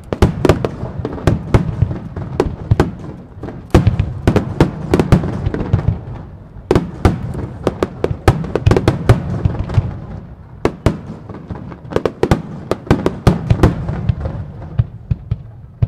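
Aerial firework shells bursting in a dense barrage: many sharp bangs and booms, often several close together, over a constant low rumble of echoes. The bangs ease off briefly near the middle and thin out and grow quieter near the end.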